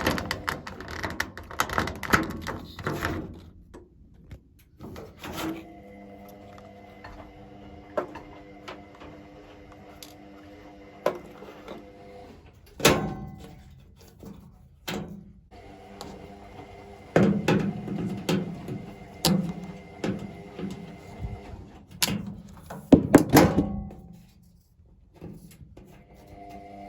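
Irregular knocks, thunks and clicks of parts being handled and worked on a washing machine being stripped down, in loud clusters. Between them a steady hum of several pitches comes and goes.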